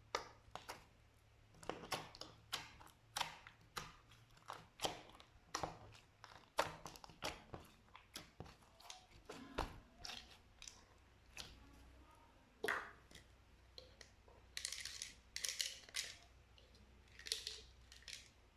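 Slime being squished and pressed, giving irregular sticky clicks and pops, one or two a second. About three quarters of the way through come a run of crisper, hissier crackles.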